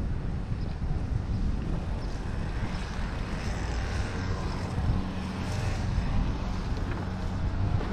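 Steady low rumble of wind and road noise on a moving bike, with a faint constant hum running under it.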